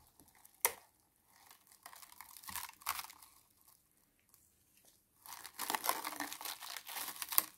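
Plastic cling film being peeled back off a plastic tub by gloved hands, crinkling in bursts: a sharp click about a second in, short crinkles, a pause, then a longer stretch of dense crinkling near the end.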